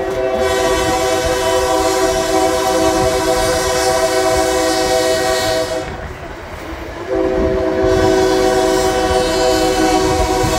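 Locomotive air horn sounding a chord in two long blasts, the first about six seconds long and the second starting about a second after it ends, over the low rumble of the moving passenger train heard from aboard.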